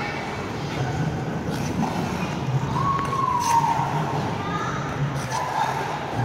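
Murmur of distant voices over a steady low hum, with a brief clear tone about three seconds in that holds and then dips in pitch.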